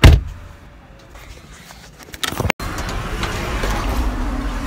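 A heavy thump as the car's trunk lid shuts, heard from inside the cabin, followed by a quiet stretch with light rustling. After an abrupt cut a little over halfway through, a steady background noise with a low hum takes over.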